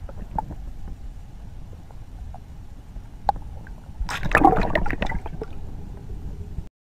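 Water heard from below the surface as a smallmouth bass is let go from a hand: a steady low rumble with a few sharp clicks, then a louder burst of bubbling and splashing about four seconds in as the hand and fish move. The sound cuts off just before the end.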